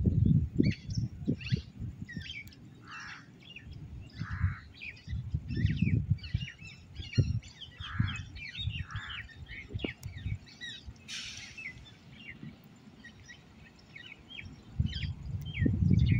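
Birds chirping and calling throughout, many quick short notes, over irregular low gusts of wind buffeting the microphone that swell at the start and again near the end.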